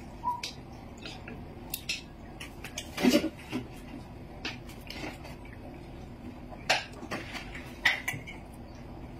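Scattered clinks and taps of utensils against dishes, the loudest about three seconds in and twice more near the end.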